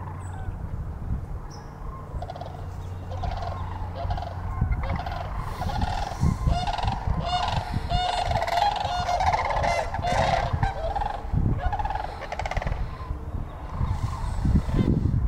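A flock of sandhill cranes calling, many rolling, rattling calls overlapping one another. The calling thickens about five seconds in and stays busy through most of the rest.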